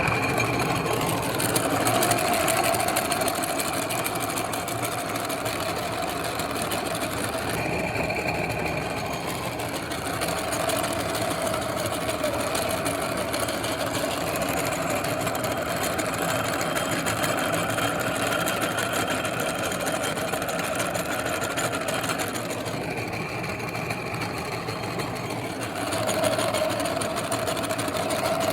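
Electric meat grinder running steadily as food is fed through it, its motor hum shifting slightly in pitch now and then.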